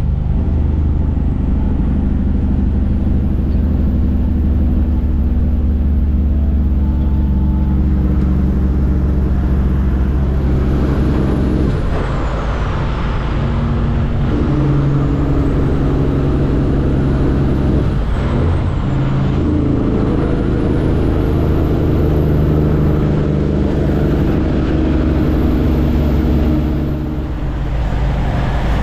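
Kenworth W900's Cummins ISX diesel engine running steadily under way on the highway. Its low note breaks off briefly twice near the middle and picks up again at a different pitch, with a faint high whistle rising and falling above it.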